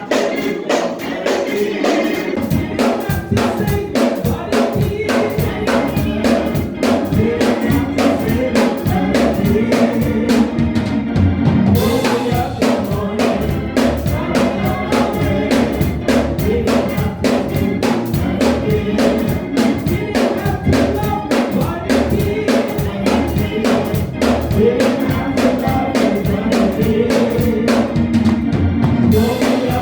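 Church praise band playing an upbeat gospel song, with drum kit, bass and group singing; the drums and bass come in about a second in.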